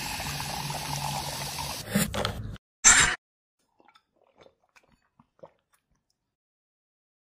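Fizzy soda poured from a plastic bottle into a glass, a steady splashing fizz that stops about two and a half seconds in. A short loud burst follows, then faint small sipping and swallowing sounds.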